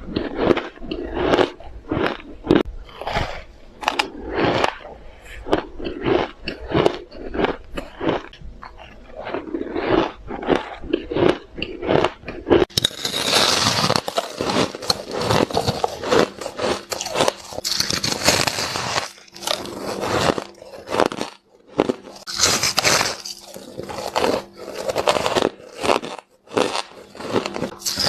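Ice being bitten and chewed close to the microphone: a steady run of sharp crunches, one to two a second. About halfway through, the crunching turns brighter and denser.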